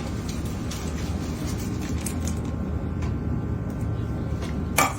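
A steady low mechanical hum, with a few faint clicks and a brief louder rustle near the end.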